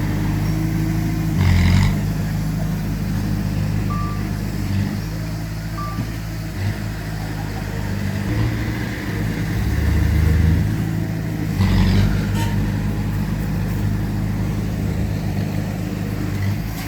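Heavy diesel earthmoving machinery running steadily. There are two sharp knocks, one about a second and a half in and one near 12 seconds, and two short high beeps about 4 and 6 seconds in.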